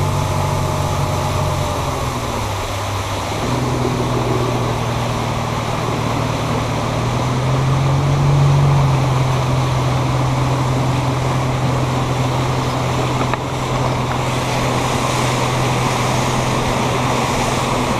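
Mercury Pro XS 175 four-stroke outboard running under way, with steady wind and water rush over the hull. The engine pitch dips about two seconds in, comes back up, and rises again around eight seconds.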